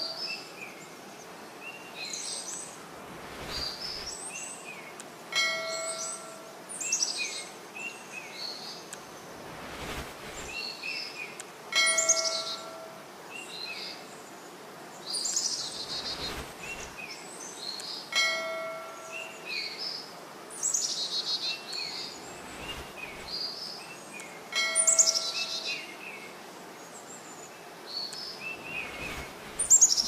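Small birds chirping and whistling, with a short bell-like chime about every six and a half seconds; the whole pattern repeats at the same spacing, like a looped birdsong track.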